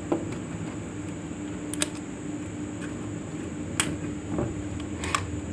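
A handful of sharp little clicks and taps, about five in all, from handling an opened electric fan motor and its wiring, over a steady background hum.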